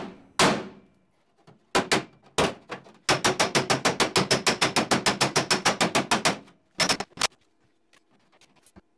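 Hammer striking the sheet-steel body panel of a 1956 Willys CJ5 Jeep to work a heat-shrink spot and straighten the panel. First a few separate ringing blows, then a fast even run of about eight light blows a second for about three seconds, then two last blows.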